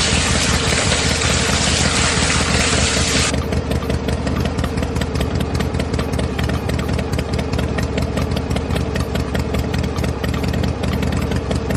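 A small motor runs steadily, turning the rollers of a miniature cardboard sugarcane-juice press through a pulley, with a steady low hum and a fast clicking rattle from the mechanism. A bright hiss over it cuts off suddenly about three seconds in.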